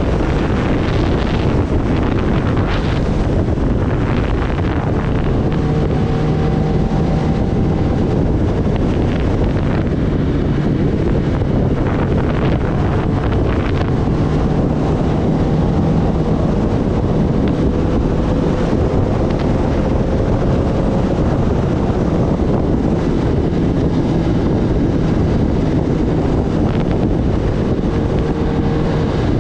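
Wind rushing over the microphone on a Kawasaki Ninja ZX-10R at highway speed, with the bike's inline-four engine running steadily underneath. The engine note climbs slowly in the middle.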